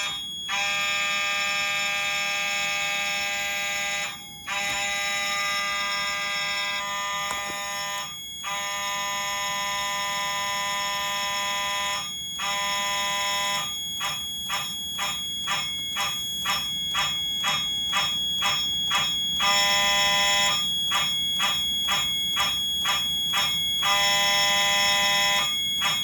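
Fire alarm sounder sounding steadily in stretches of about four seconds with short breaks, then switched on and off about twice a second in a march-time pattern by a relay timer. The pulsing is uneven, with two brief steady stretches. A steady high-pitched tone from another alarm device runs underneath without a break.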